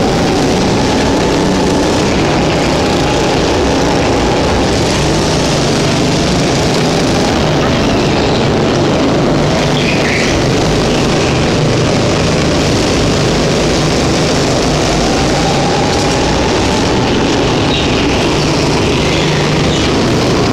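240cc go-kart engines running in an enclosed hall: a loud, steady engine drone whose pitch rises and falls as karts accelerate and pass.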